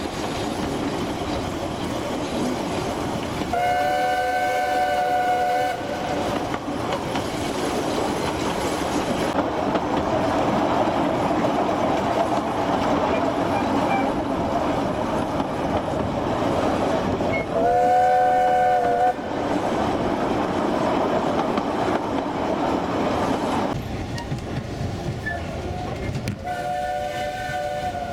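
Narrow-gauge steam train running, heard from a carriage window: the steady noise of the carriages on the track, with the locomotive's steam whistle sounding three times. The blasts come about four seconds in (about two seconds long), at about eighteen seconds (a second and a half), and again near the end. Each blast is a chord of several notes at once.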